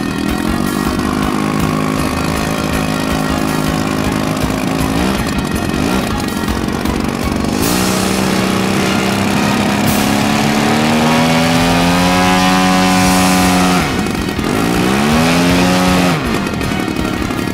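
Large-scale RC aerobatic biplane's petrol engine running on the ground. It idles steadily at first, then is run up, its pitch rising over several seconds and held high. It drops back briefly, revs up again and falls back to idle near the end.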